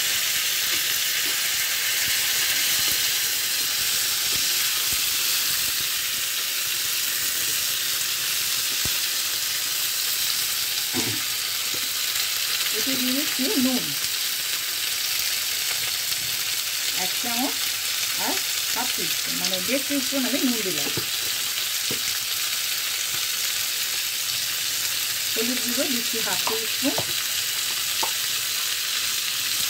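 Chopped vegetables (cauliflower, pumpkin, potato and beans) frying in hot oil in a nonstick pan with a steady sizzle, turned now and then with a plastic spatula.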